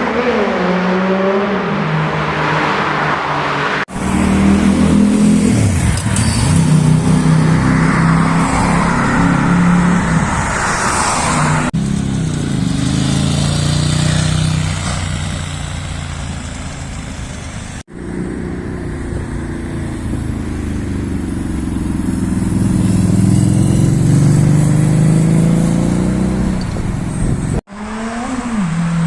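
Sport motorcycle engines revving and accelerating hard through loud exhausts, one bike after another, the sound cutting abruptly to a new engine about every 4 to 10 seconds.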